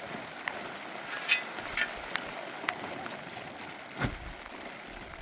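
Heavy rain falling steadily, with scattered sharp clicks and knocks and a dull thump about four seconds in.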